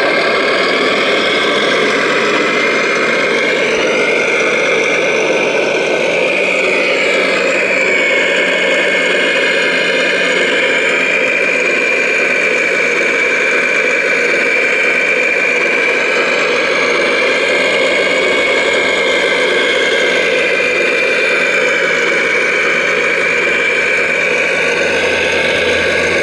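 Radio-controlled scale construction machines running: a steady motor whine over a dense mechanical hum, the whine bending up and down in pitch about four to seven seconds in.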